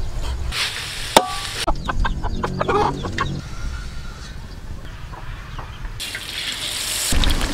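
Chickens clucking in short calls, with a sharp click about a second in and a hiss near the end.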